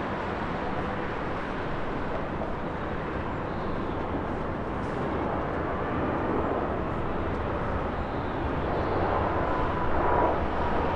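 Airbus A320-200 airliner coming in to land, its jet engines a steady rushing noise that grows a little louder toward the end, with a faint whine near the end.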